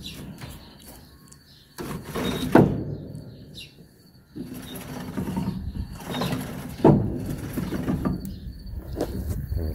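Chickens clucking and cooing softly, over a rushing noise with two sharp knocks, one about two and a half seconds in and one about seven seconds in.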